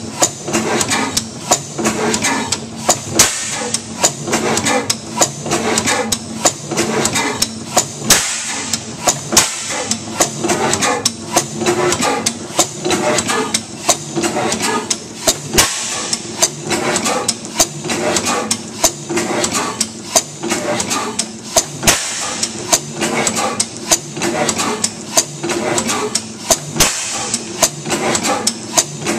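15 HP St. Mary's sideshaft hit-and-miss gas engine, with drop-cam igniter and mechanical valves, running: a steady, rapid run of sharp mechanical knocks and clicks.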